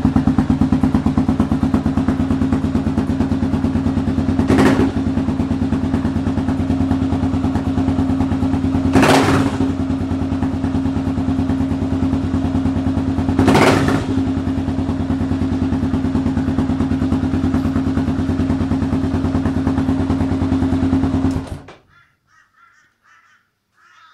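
Kawasaki KLR650's single-cylinder engine running steadily through a Two Brothers M7 slip-on exhaust. Three brief louder noises come a few seconds apart, and the engine sound cuts off suddenly near the end.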